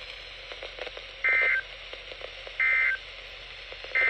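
Emergency Alert System end-of-message signal: three short bursts of SAME digital data tones, a two-tone warbling screech, each about a third of a second long and a little over a second apart. Faint radio hiss and crackle lie between the bursts.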